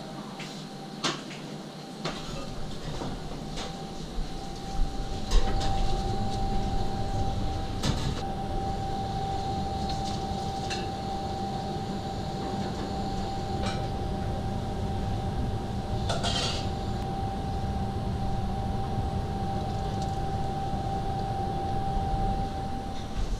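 Kitchen work noise: a steady rumble with a thin steady whine through most of it, and scattered clicks and knocks from handling noodles, pots and utensils.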